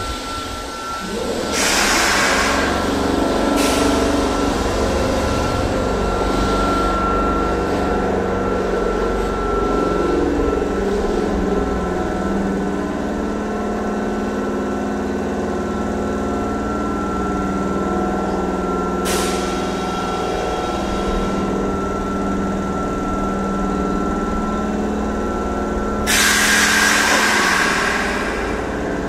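Keihan electric train at the platform: steady machinery hum and rumble, with short hisses of released air a couple of times early on and once in the middle, and a longer, louder air hiss near the end.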